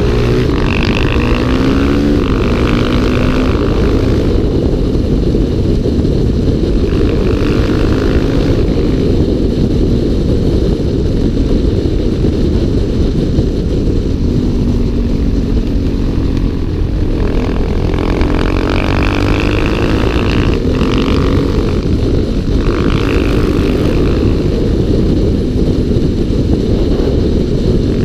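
Single-cylinder four-stroke supermoto motorcycle engine running at road speed, heard from a bike-mounted camera with heavy wind rush. The engine note rises and falls several times as the throttle is worked through the bends.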